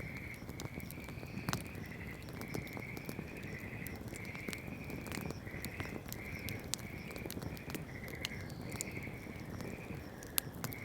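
Wood campfire crackling with scattered sharp pops, one louder pop near the end. Under it runs a steady series of short trilled calls from a small animal, about one and a half a second.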